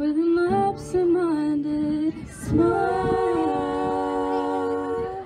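Female voices singing long held notes in close harmony. A short break comes about two seconds in, then a long sustained chord that stops near the end.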